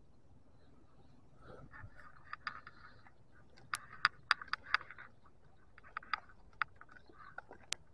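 A scatter of sharp, irregular clicks and ticks: a quick run of about six a little under four seconds in, and a few more spread later, over faint rustling.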